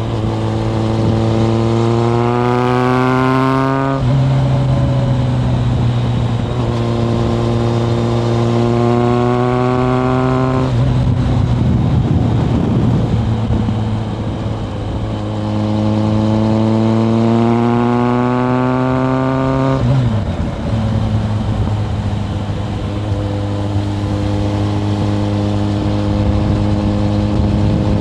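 Inline-four engine of a 1997 Kawasaki ZRX1100 through a Yoshimura exhaust, heard from the rider's seat. It climbs in pitch as the bike accelerates, drops at gear changes about 4 and 20 seconds in, and eases off briefly in between. In the last part it runs at a steady cruising note.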